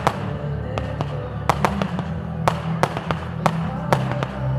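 Fireworks going off in sharp bangs, about two or three a second, over music with a steady low bass.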